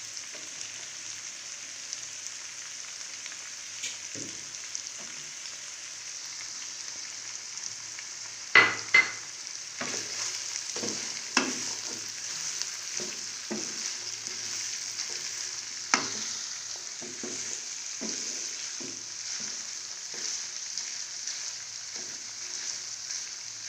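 Chicken keema with peas and potatoes frying in a kadhai with a steady sizzle, while a spoon stirs and scrapes it, knocking against the pan. The stirring knocks start about a third of the way in, the loudest a pair of sharp knocks, with another strong one later.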